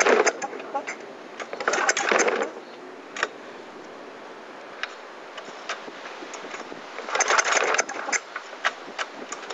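Murray lawn mower's small engine being cranked by a pull rope: three short bursts of rapid chattering a few seconds apart, the engine turning over without catching, as a cold mower does.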